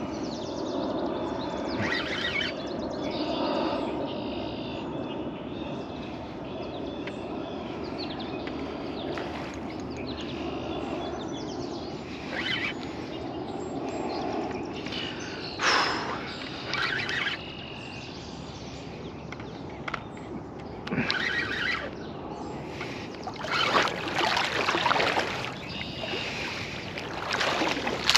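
Water splashing in short bursts as a hooked carp thrashes at the surface during the fight, over a steady outdoor rush. The splashes come thickest in the last few seconds as the fish is drawn into the landing net.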